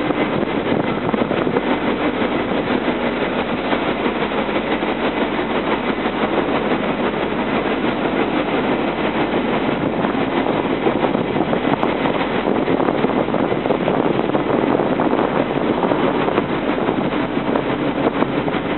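Steady, loud rushing noise with no breaks, with a faint hum in the first couple of seconds: the general din of wind and machinery at a container terminal.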